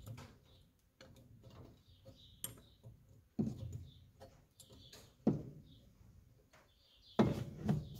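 Small metal hand tool clicking and scraping against the flywheel hub of a JLO 292 two-stroke engine as it is worked loose, with three heavier knocks about two seconds apart, starting about three seconds in.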